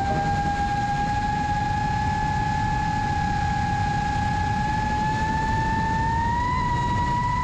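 FPV quadcopter's four brushless motors and five-inch props running in flight, a steady whine that rises a little in pitch about six seconds in, over low rumbling wind buffeting on the onboard camera's microphone.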